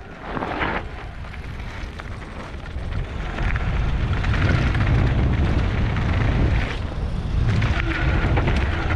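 Wind buffeting an action-camera microphone with the rumble of mountain-bike tyres rolling fast over a rough trail. It gets louder about three seconds in as speed picks up.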